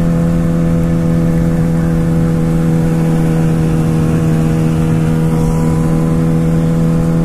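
Motorcycle engine running at a steady speed while cruising, its pitch holding level, with wind rumbling on the bare microphone.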